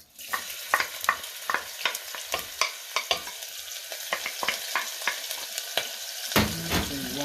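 Tomatoes frying in hot oil in a pan: a steady sizzle with many sharp crackles and pops, starting suddenly.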